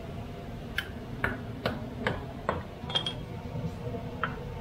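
A small metal pestle striking inside a little metal mortar: a series of light metallic taps, roughly two a second, some with a brief ring.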